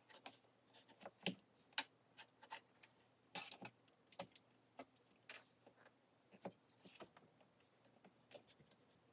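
Near silence with scattered faint clicks and taps, roughly one every half second to second, the two strongest about a second and a half in.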